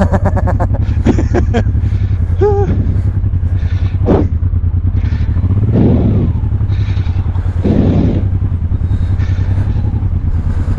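Honda Transalp 600's V-twin motorcycle engine running at low, steady revs, with a few short knocks over it.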